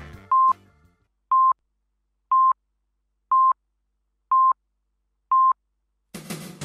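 Radio time-signal pips: six short beeps at one pitch, one a second, as the programme's music fades out.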